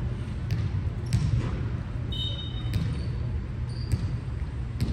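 Volleyball match in a gym: several sharp ball hits and bounces, roughly a second apart, with a few brief sneaker squeaks on the court over a steady low rumble of the hall.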